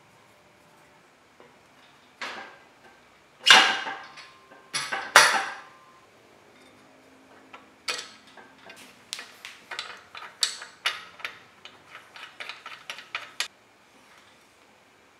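Metal clinks and knocks of a Shimano Tiagra Hollowtech II crank arm being fitted onto its splined spindle. A few loud, ringing knocks come first, then a run of quicker, lighter clicks for several seconds.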